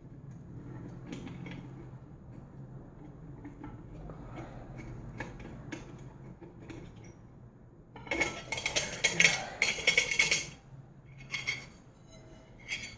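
Small metal parts clinking and rattling while a ceiling fan's pull-chain switch housing is handled. There are faint clicks at first, then a dense spell of jangling about eight seconds in that lasts two to three seconds, and two shorter bursts near the end.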